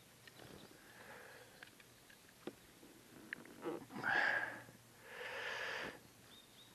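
A person breathing close to the microphone: two breaths about four and five seconds in, the second one longer, with a few faint ticks before them.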